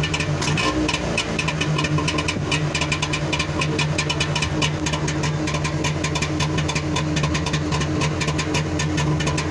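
Trabant 601 S's two-cylinder two-stroke engine idling just after a cold start, heard at the tailpipe, running with a rapid, uneven crackle over a steady low tone.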